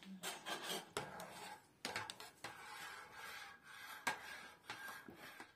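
Ceramic soup bowls set down on a metal tray and metal spoons scraping and clinking against them: a series of sharp clicks and scrapes, the sharpest about four seconds in.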